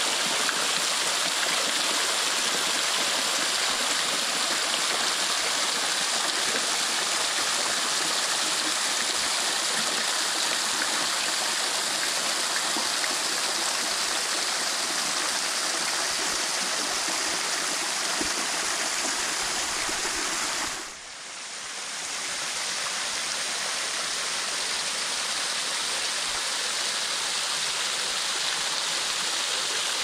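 Small spring-fed waterfall: water splashing steadily from a mossy rock face into a shallow pool. The sound dips briefly about two-thirds of the way through, then comes back.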